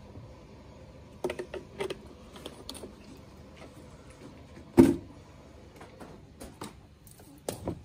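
Plastic clicks and knocks from handling a nutrient bottle and measuring jug, a scattered run of short taps with one louder knock about five seconds in.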